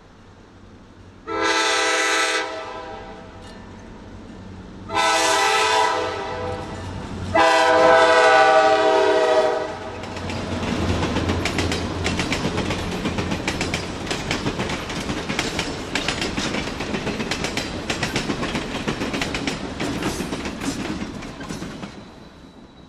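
A passenger train sounds its horn in three blasts, the last the longest. Its cars then roll past with fast, steady clicking of wheels over rail joints, which fades away near the end.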